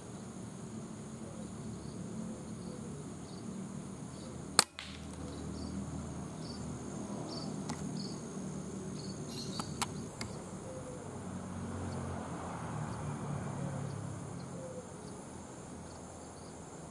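One sharp shot from an uklik pump air rifle about four and a half seconds in, with two lighter clicks around ten seconds in. Under it, insects buzz steadily and small birds chirp.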